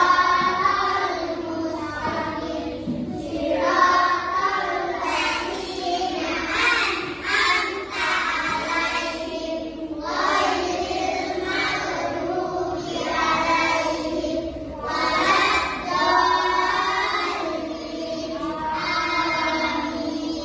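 Children's voices singing a song together, line after line with short breaks between phrases.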